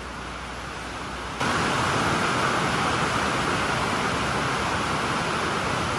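A steady, even rushing hiss with no distinct strokes in it. It jumps abruptly louder about a second and a half in.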